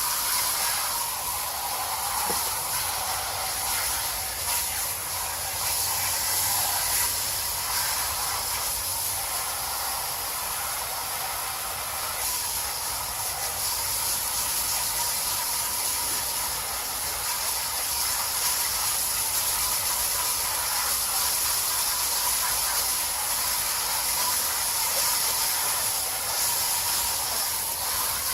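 Garden hose spraying water through an air-conditioning coil to rinse out packed cottonwood, a steady hiss.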